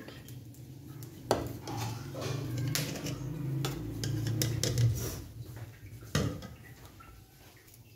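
Metal spoon clinking and scraping against a metal pot while dum-steamed pulao rice is turned, with several sharp knocks over a low steady hum.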